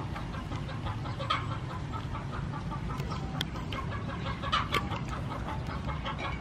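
Chickens clucking in the background over a steady low rumble, with a few short clicks and one brief louder knock about three-quarters of the way through.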